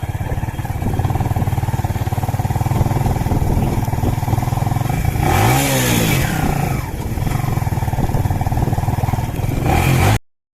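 Kawasaki Ninja motorcycle engine running at idle, revved once about five seconds in and dropping back to idle; the sound cuts off abruptly near the end.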